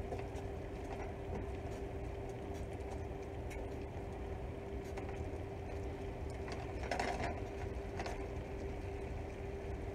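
Metal tongs tossing linguine and shrimp in a skillet, with scattered clicks and scrapes of the tongs against the pan, loudest about seven seconds in and again a second later, over a steady low hum.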